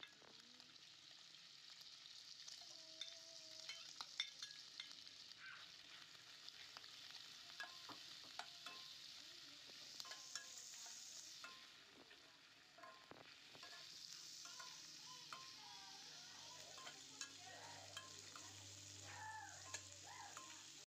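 Fatty pork pieces with ginger and shallots frying in a nonstick wok, a faint sizzle that swells and fades, with the spatula scraping and clicking against the pan as they are stirred.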